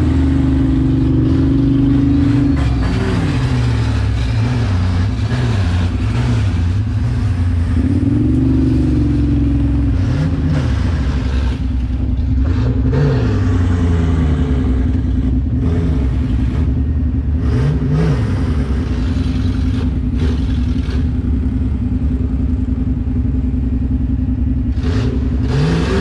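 An off-road vehicle's engine runs steadily, its revs rising and falling in short blips every few seconds. Several blips come in quick succession near the start and fewer later on, over a constant rushing noise.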